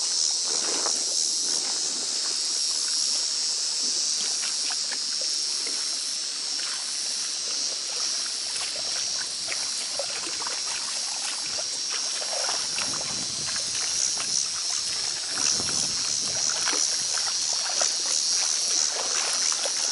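Pond water sloshing and splashing in irregular bursts as algae is shovelled and hauled out by hand. Underneath is a steady, high-pitched chorus of insects.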